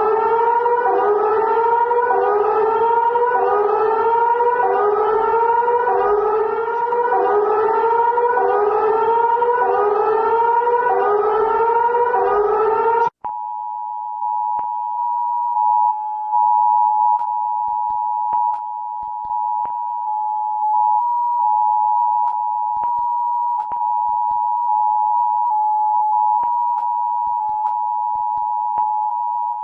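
Electronic alert siren whooping upward over and over, about one rising sweep every second and a quarter, in several layered tones; it cuts off abruptly about 13 seconds in. A steady two-tone Emergency Alert System attention signal then sounds, with scattered faint clicks.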